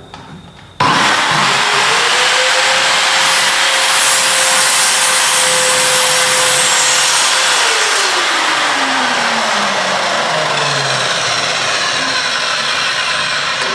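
Parkside PZKS 2000 B2 sliding compound mitre saw, a 2000 W motor with a 24-tooth blade, switched on with a sudden start about a second in and making a bevel cut through a wood board. Its motor note rises to speed and holds steady, then falls in pitch as it winds down in the second half.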